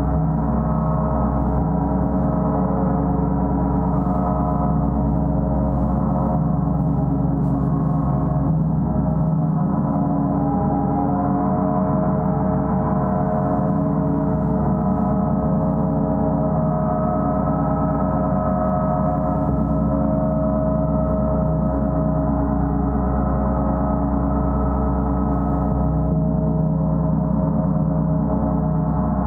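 A gong, played continuously, giving a dense, steady wash of many overlapping tones with no separate strikes standing out.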